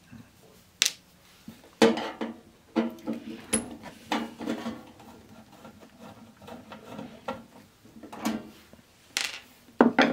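A screwdriver and small metal screws being handled on a workbench while the top-case screws of a CD changer are taken out: a string of sharp clicks and taps at irregular intervals.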